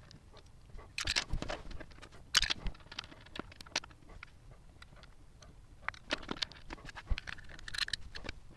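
Hands handling a 3D printer's plastic print head housing and small metal parts during reassembly: scattered light clicks, taps and scrapes, coming in small clusters about a second in, around two and a half seconds, and again near the end.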